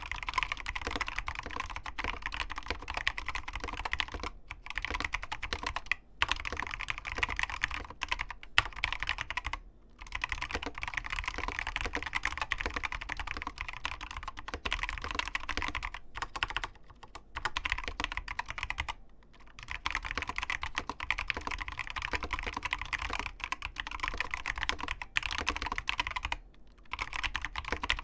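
Continuous fast typing on an ABKO Hacker K660 mechanical keyboard with Kailh Box optical linear switches and crystal OEM-profile keycaps: a rapid, dense clatter of keystrokes, broken by a few brief pauses.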